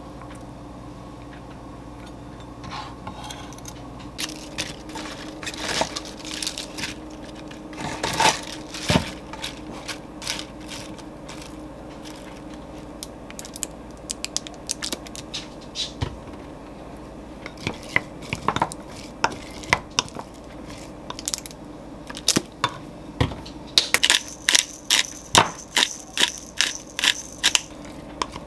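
Scattered clinks and taps of kitchen utensils and dishes on a counter. In the last few seconds, a wooden spoon stirs diced vegetables in a glass mug, knocking against the glass in quick repeated clicks.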